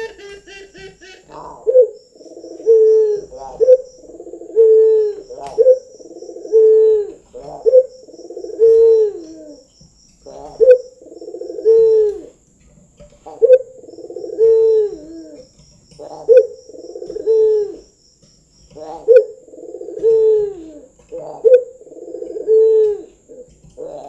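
Barbary dove (puter) cooing over and over, each phrase a short note followed by a longer coo that drops at its end, about every two and a half seconds.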